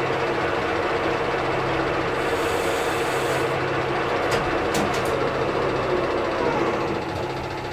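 Metal lathe running with its chuck spinning: a steady motor-and-gear hum, with a couple of sharp clicks about halfway through. Near the end the sound drops a little as the machine begins to wind down.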